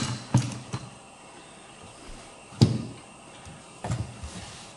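A handful of sharp clicks and knocks from small parts being handled and fitted together, clustered near the start, one about two and a half seconds in and a few more near the end, with quiet between.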